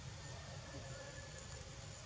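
Faint, steady background hiss and low rumble, with a faint thin high tone held for about a second in the middle; no distinct event.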